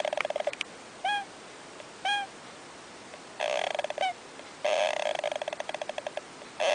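An animal calling in bouts of rapid, stuttering chatter, each about a second long, with two short upward chirps in between.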